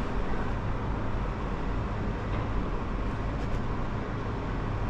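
Steady low rumble of road traffic and engines, with a constant hum underneath.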